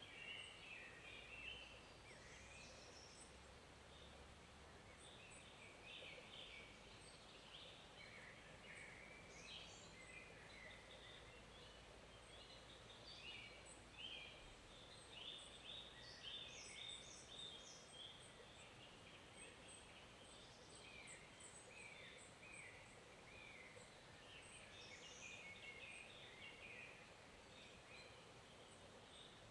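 Faint forest ambience: small birds chirping and singing throughout, over the low steady hiss of a flowing stream.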